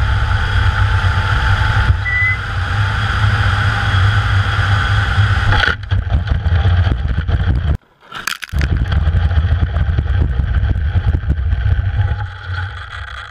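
A small fixed-wing drone's engine and propeller whine heard from the aircraft itself, over heavy wind rumble on the onboard microphone during a landing approach. The whine drops sharply about six seconds in. Just after that there is a brief cutout and a short harsh noise, then the rumble carries on and fades away.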